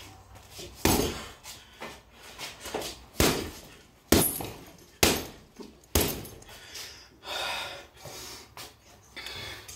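Gloved left and right hooks landing on a hanging heavy bag: a run of sharp thuds, the hardest five coming about a second apart through the middle, then a lull near the end.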